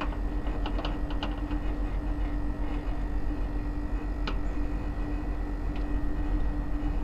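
Sharp metallic clicks of a refrigerant gauge hose being fitted to the service valve of a York 1hp R22 air conditioner, to check the gas pressure on a unit suspected of leaking. There is a quick cluster of clicks about a second in and single clicks later on. Under them runs the steady hum of the running unit.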